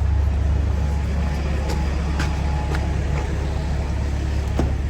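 A lorry's diesel engine running, a steady low hum, with a few light clicks over it.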